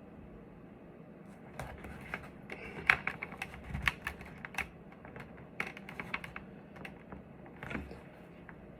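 Irregular clicks and taps of hands handling a motorcycle helmet and comm-system parts. The sounds start about a second and a half in, with one sharp click near the three-second mark louder than the rest and a few dull knocks.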